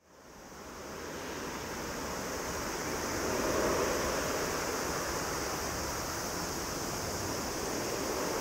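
Boeing 737-800 freighter's CFM56-7B jet engines running as the aircraft taxis on the runway: a steady, even rush of engine noise that fades in over the first second and swells slightly about four seconds in.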